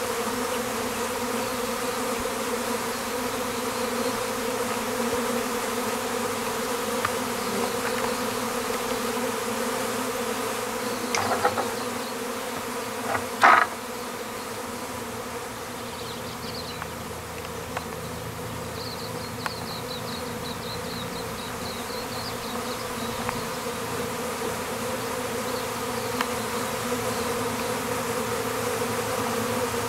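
Honeybees buzzing in a steady hum. A couple of short knocks come about eleven and thirteen seconds in; the second is the loudest sound.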